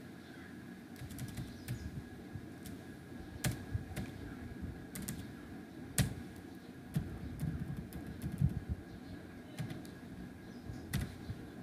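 Computer keyboard being typed on: irregular, scattered key clicks, with a sharper click about six seconds in.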